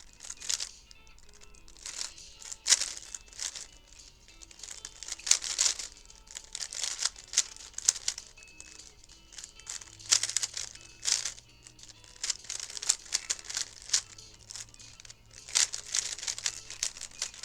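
3x3 speedcube being turned fast during a solve: quick, irregular plastic clicking and clacking of the layers, over faint background music.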